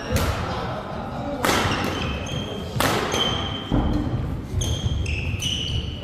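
Court shoes squeaking on an indoor badminton court floor, with short high squeaks clustering in the second half, alongside four sharp impacts in the first four seconds that echo in the hall.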